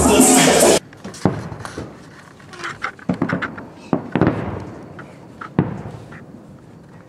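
Dance music that cuts off abruptly just under a second in, followed by fireworks going off: a string of irregular sharp bangs, each trailing off briefly.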